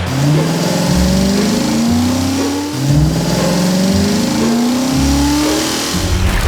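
Car engine sound effect revving up again and again, each rev climbing steadily in pitch before dropping back and rising once more.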